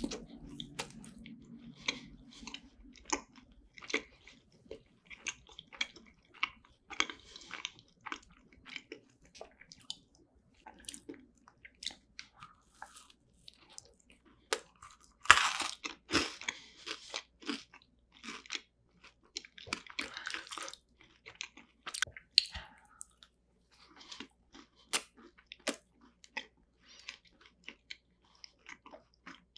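Close-miked eating of cream-filled, shell-shaped macarons: crisp bites and crunches of the meringue shells mixed with soft, wet chewing sounds, with one loudest bite about halfway through.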